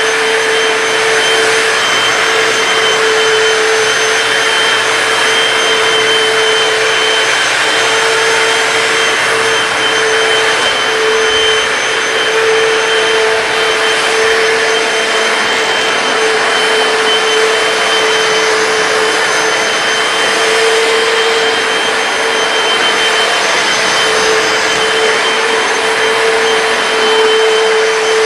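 Hoover PowerDash wet hard-floor cleaner running steadily while scrubbing a tile floor: a constant motor whine with a steady hum over the suction noise.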